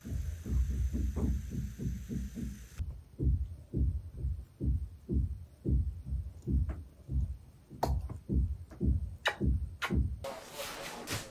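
Heavy rhythmic thudding from renovation work in a neighbouring apartment, carried through the building's floors and walls, at about three thuds a second, with a few sharper knocks late on; it stops about ten seconds in.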